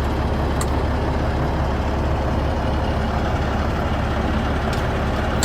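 Steady drone of a Freightliner Classic semi truck running, with a few brief clicks.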